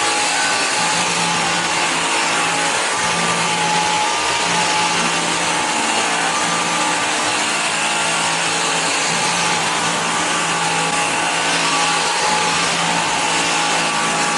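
Bissell Air Ram cordless stick vacuum running steadily, its motor and brush roll giving a constant whir with a steady hum and whine.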